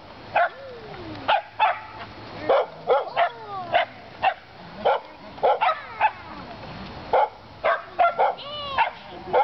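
Shetland sheepdog barking over and over, about two sharp barks a second at an uneven pace, some barks sliding down in pitch like a yelp.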